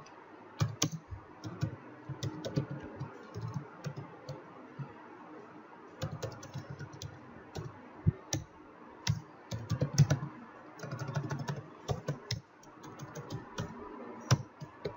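Typing on a computer keyboard: irregular key clicks in quick runs, with short pauses between them.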